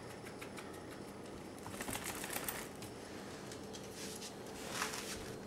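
Welsh Terrier puppy scratching itself and moving about, making rapid faint clicks and rustles. There are busier bursts about two seconds in and near the end, where its claws tick on the hardwood floor.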